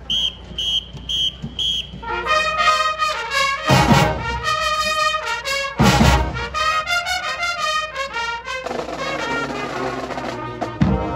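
High school marching band playing on the field. A run of short, evenly spaced high notes opens the passage, and the full brass section comes in with loud chords about two seconds in. There are two heavy drum-and-cymbal hits a couple of seconds apart.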